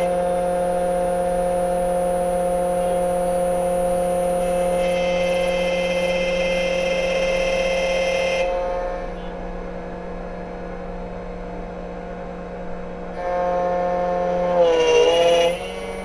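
Xtool automatic key cutting machine running, its motor and cutter whining steadily as it mills a Mercedes key blade. The sound drops quieter for a few seconds past the middle, comes back, then dips briefly in pitch near the end.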